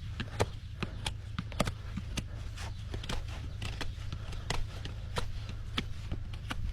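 Sharp, irregular clicks and snaps of hoof-trimming tools cutting a Shire horse's hoof, a few a second, over a steady low hum.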